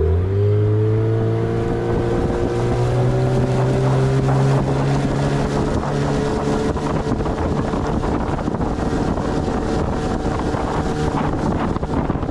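Outboard motor of a small river fishing boat speeding up, its pitch rising over the first couple of seconds, then running steadily at speed, with wind buffeting the microphone.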